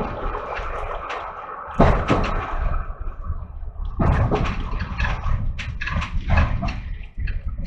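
Class 117 diesel multiple unit's wheels knocking and clattering over rail joints and pointwork, heard from inside the rear of the train over a low running rumble. There are a couple of heavy knocks about two seconds in and a dense run of clatter from about four seconds in, as the train passes over the points.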